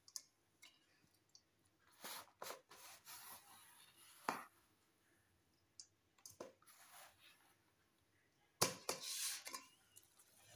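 Handfuls of finely chopped bottle gourd leaves rustling softly as they are scooped off a plastic tray and dropped into an aluminium bowl, with a hand brushing across the tray. Scattered short, crisp rustles, with a longer run of them near the end.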